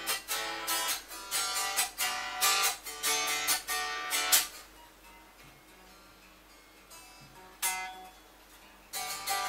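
Snapaxe A folding travel guitar strummed unplugged, its amplifier off, sounding quiet. Strums come about three a second for roughly four seconds, then a pause with a single strum, then strumming resumes near the end.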